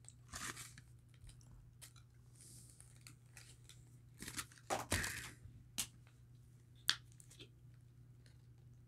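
Cardboard snack box being pried and torn open by hand, with rustling and crinkling bursts of packaging, the loudest about halfway through, and a few sharp clicks.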